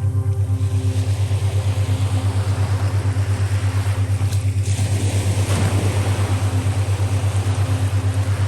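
A boat's engine running at idle: a steady low drone with a fast, even throb. Sea water washes and laps over it, with one wave swelling about five to six seconds in.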